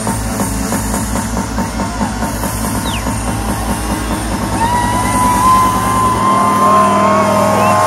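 Live rap-rave music played loud through a concert sound system: a fast, heavy bass beat that drops out about six seconds in, while a high, slightly wavering held melodic line comes in shortly before.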